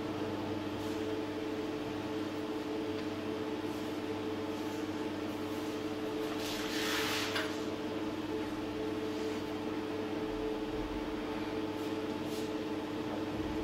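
A steady hum made of a few held tones, with a brief swish about seven seconds in.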